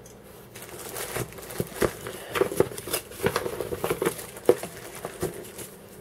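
Clear plastic packaging crinkling and crackling as it is handled, in irregular bursts.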